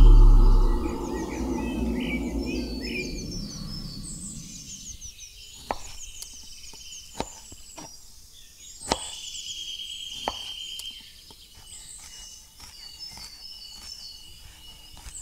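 A small knife cutting a small onion on a wooden chopping board, giving a few sharp taps of the blade on the board spaced a second or more apart in the middle. Birds chirp throughout, and a loud low hum fades away over the first few seconds.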